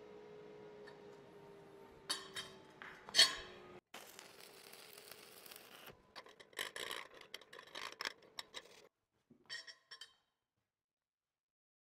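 Steel plate with a welded-on D-ring handled on a steel welding table. Sharp metal clinks and knocks come in the first few seconds, the loudest about three seconds in. Scraping and rubbing of metal on metal follow and die away near the end, over a faint hum that fades early.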